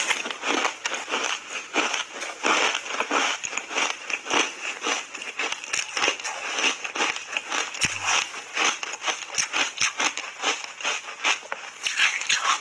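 Crunchy foam reshaped ice coated in matcha powder being chewed in big bites: a dense, uneven crackle of many crunches a second.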